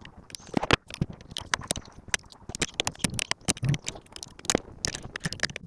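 Irregular sharp metal clicks and taps of a wrench working a brake line nut loose from a Jeep YJ's brake master cylinder, several a second.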